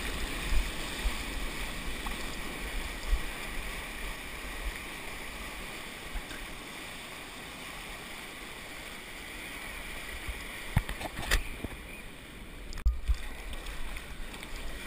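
Water rushing and splashing around a surfboard as it is paddled through whitewater, heard up close from a camera on the board. Two sharp knocks about eleven seconds in.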